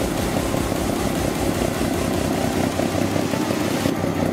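Heavy diesel engine of an off-road trial truck running steadily as the truck crawls along a steep, tilted slope.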